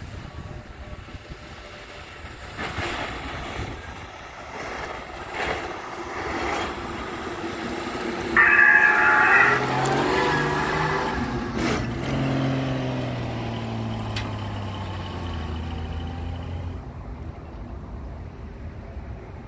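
Old 1940s Chevrolet truck driving past: its engine grows louder as it approaches, then the note falls and fades as it drives off. About eight seconds in, as it passes, a loud tone lasting about a second stands out above the engine.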